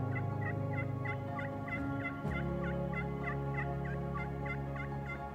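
Background music with soft held chords that change about two seconds in, over a steady run of quick repeated high notes, about four a second.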